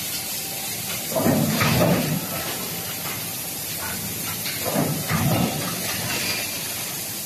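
An automatic billet-forging line running in a large factory hall: a steady hiss, with a louder heavy surge from the machinery about every three and a half seconds, twice, in step with the line's working cycle.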